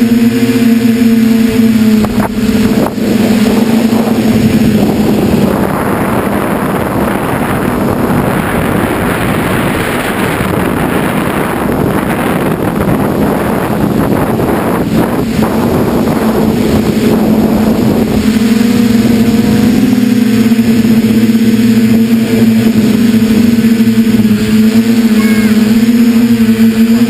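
A small camera drone's motors and propellers humming steadily. For much of the middle, wind rushing over the microphone covers the hum, which comes through clearly again in the last several seconds, wavering slightly in pitch.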